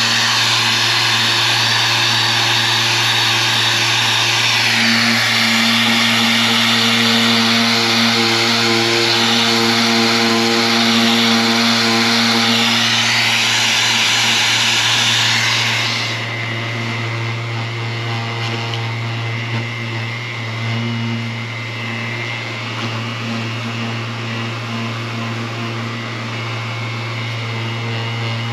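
Power sander fitted with a 1000-grit soft-back pad, running while sanding a painted plastic car bumper. The sound is a steady hum with a loud hiss. About halfway through the hiss falls away and the machine carries on running more quietly.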